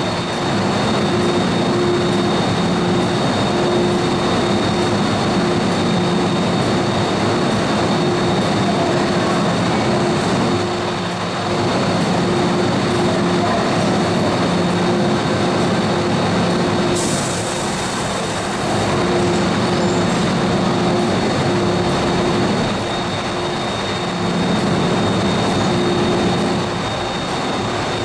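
MTR M-Train electric multiple unit approaching through the tunnel and running in to the station platform: a steady rumble with a low hum that drops out and returns several times. A short hiss comes about 17 seconds in.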